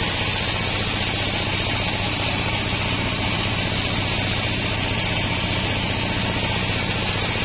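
Homemade band sawmill running steadily, its blade cutting lengthwise through a wadang log: a constant sawing hiss over a low machine hum.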